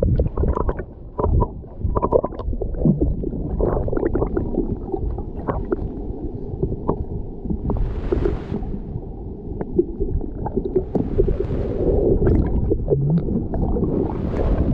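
Muffled sloshing and gurgling of river water with many small knocks, dull as if heard from under the surface, while a fish is released. Brief splashy hiss comes about eight seconds in, again around eleven seconds and near the end.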